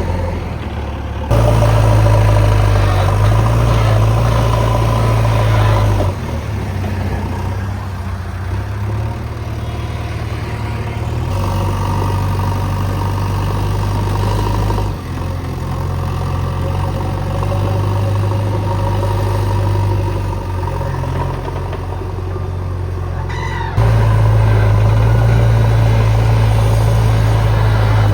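JCB 3DX backhoe loader's diesel engine running steadily, stepping up louder in three spells, about a second in, around the middle, and near the end, as it takes load from the digging work.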